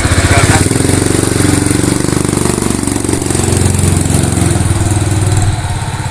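Honda C70's small single-cylinder four-stroke engine, converted to an automatic with the chain drive kept, running as the motorcycle pulls away; its revs rise over the first couple of seconds, then it runs on steadily, a little fainter near the end as it rides off.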